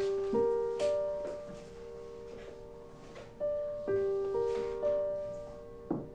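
Background piano music: a slow melody of single struck notes, each ringing on and fading, with a pause of about two seconds in the middle.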